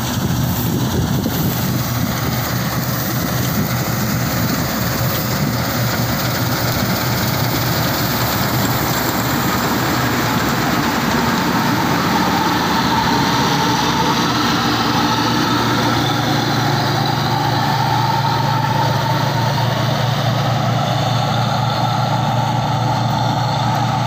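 New Holland combine harvester running steadily while cutting wheat, its engine and threshing machinery making a continuous low hum under a steady rushing noise.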